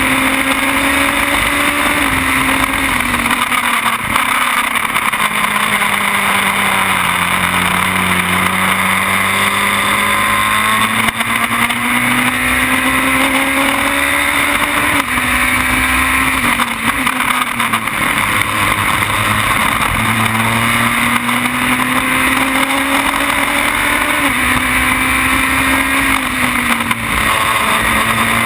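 Formula BMW single-seater's four-cylinder engine at racing revs, heard onboard over heavy wind rush. The engine note sinks for the first several seconds, climbs steadily for about eight seconds, then drops in a few sudden steps at gear changes before climbing again.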